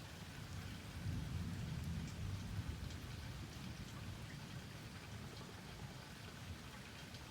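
Steady rain with scattered drops pattering, and a low rumble of distant thunder that swells about a second in and dies away over a few seconds.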